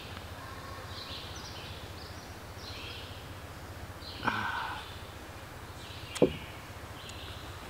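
Outdoor ambience with a bird singing short, high phrases about once a second. A brief louder sound comes about four seconds in. A sharp knock about six seconds in is a small glass syrup bottle being set down on a wooden picnic table.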